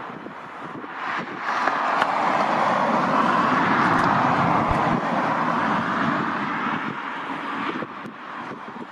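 A vehicle passing close by. Its rushing noise swells about a second in, holds loudest for several seconds, then fades away near the end, with some wind on the microphone.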